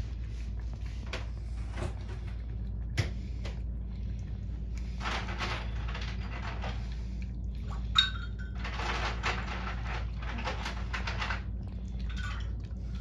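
Two cats eating wet food from metal bowls: soft wet chewing and licking in irregular spells, with a sharp clink and a brief ring against a bowl about eight seconds in. A steady low hum lies underneath.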